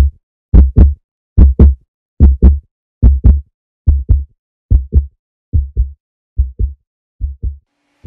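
Heartbeat sound effect: deep lub-dub double thumps, a little more than one pair a second, with silence between the pairs and growing slightly softer toward the end.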